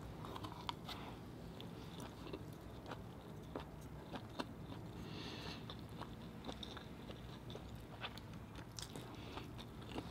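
Faint close-up chewing of a mouthful of abalone and rice, with small wet mouth clicks scattered throughout.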